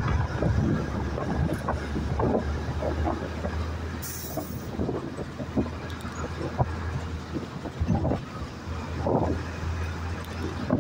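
Riding in a moving road vehicle: a steady low engine and road rumble with scattered knocks and rattles, and a short hiss about four seconds in.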